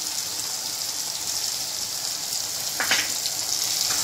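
Onion, tomato and garlic masala frying in oil in a nonstick kadai: a steady sizzle. About three seconds in, a short knock of the steel spoon against the pan as stirring starts.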